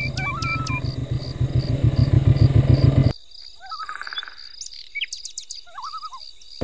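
Songbirds chirping and calling several times, over a steady, fast, high-pitched pulsing. A low rhythmic rumble runs under the birds for the first three seconds and cuts off suddenly.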